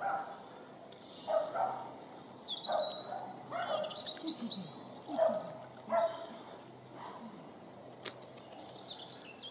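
Dandie Dinmont Terriers giving short yips and barks, one every second or so, some sliding down in pitch.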